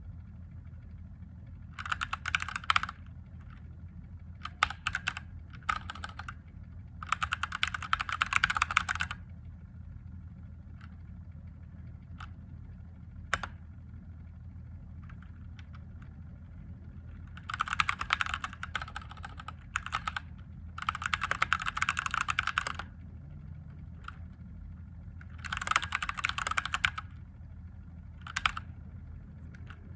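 Typing on a mechanical keyboard with Gateron Yellow linear switches, in bursts of rapid key clacks a second or two long with short pauses between them.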